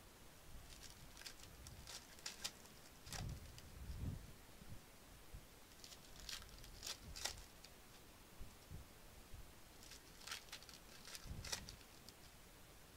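Faint crinkling rustles of foil trading-card pack wrappers being handled and torn open by gloved hands, in several short clusters, with a few soft knocks on the table.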